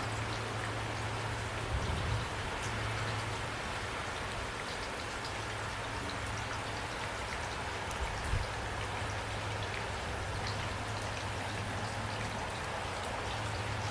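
Steady rain falling, with many individual drops ticking on surfaces over a continuous hiss. A steady low hum runs underneath, and there are brief low thumps about two seconds and eight seconds in.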